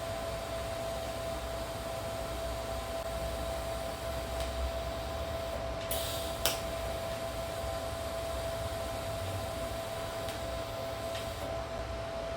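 A fan running with a steady hum and a single steady tone. A couple of brief clicks come about six seconds in.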